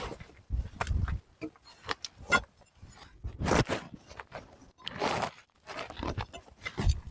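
Irregular crunching and scraping noises, several half-second swells with sharp clicks and knocks between them.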